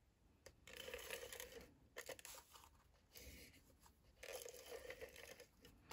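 Faint rustling of a Stampin' Seal tape runner laying adhesive strips on cardstock, in about four short passes with the paper shifting under the hands.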